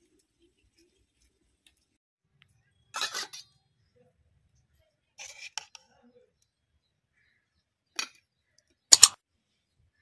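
Metal spoon scraping and clinking against a steel kadai and bowl as curry is served: a few short, separate scrapes, the loudest near the end.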